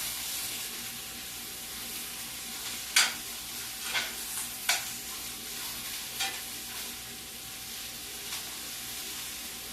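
Cabbage, onions and carrots sizzling in a hot pan for a stir fry, with a steady frying hiss. A spoon clicks against the pan several times as the vegetables are stirred, loudest about three seconds in.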